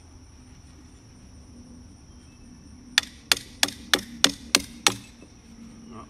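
Hammer blows on a hand tool against a wooden utility pole: seven quick, sharp strikes about three a second, starting about halfway through, driven to pull the stapled copper ground wire off the pole.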